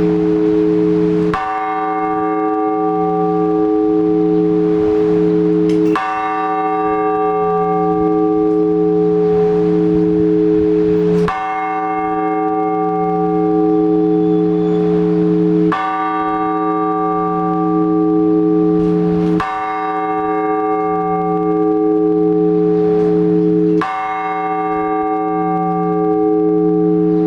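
A single large Orthodox church bell tolled slowly, one stroke about every four to five seconds, each stroke ringing on into the next with a slowly wavering low hum. This is the blagovest, the measured single-bell ringing that calls the faithful to the all-night vigil.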